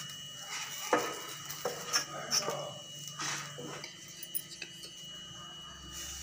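Wooden spatula clinking and scraping against a steel plate and griddle as fried tikkis are lifted and set down, with several sharp knocks in the first three seconds or so, then quieter.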